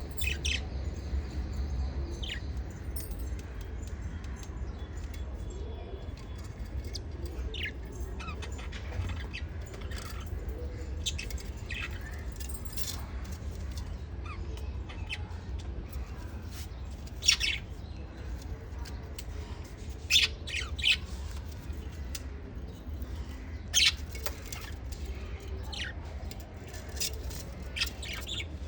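Newly hatched small parrot chicks giving short, high chirps, scattered and irregular, with a few louder ones in the second half. A steady low hum runs underneath.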